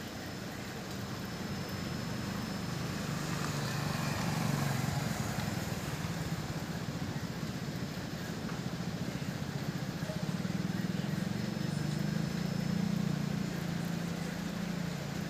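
A low engine hum of a motor vehicle, swelling louder about four seconds in and again near the end.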